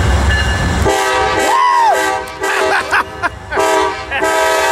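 Amtrak diesel passenger locomotive rumbling in, then sounding its multi-chime air horn: a chord of several steady tones in a few blasts, the last one long.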